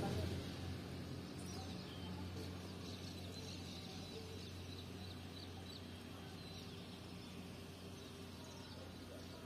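Quiet outdoor background with a steady low hum, and a bird chirping over and over from about a second and a half in until about seven seconds in.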